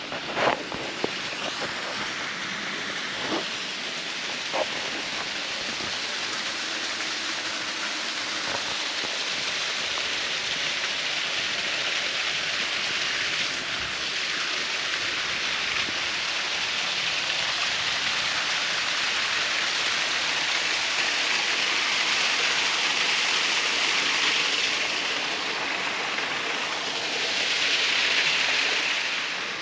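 Steady rushing of water from a rock waterfall pouring into a pool, swelling a little louder in the later part.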